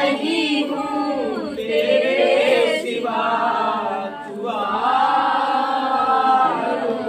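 A crowd of people singing a Christian song of praise to Jesus together, in long held notes that slide between pitches, with a short break for breath about four seconds in.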